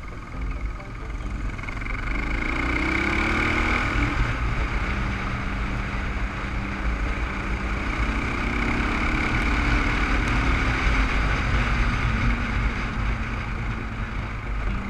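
Dirt bike engine running while riding, rising in pitch over the first few seconds as the bike speeds up, then holding steady, with wind rushing over the helmet-mounted camera.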